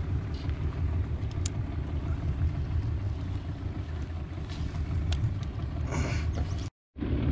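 Outboard motor of a small fishing boat running steadily at low speed, a low rumble, with a brief dropout near the end.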